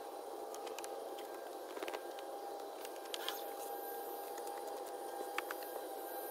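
A steady machine hum with a faint hiss, broken by a few light clicks and taps.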